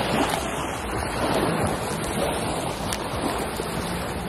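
Steady rushing noise of wind buffeting the microphone over moving water.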